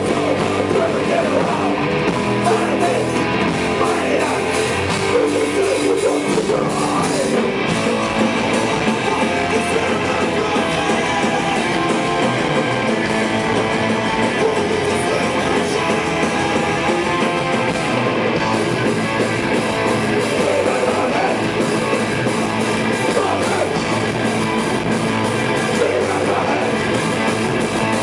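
Live rock band playing at a steady loud level: electric guitars and drum kit.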